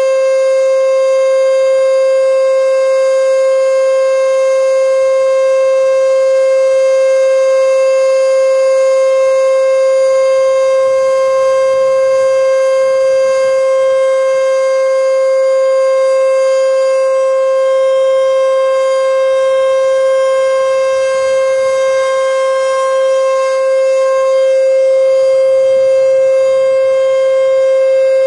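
E.D. Bullard 3H27 "Weltex" outdoor warning siren sounding its full-alert signal: a loud, steady tone that holds one pitch with strong overtones, neither rising nor falling.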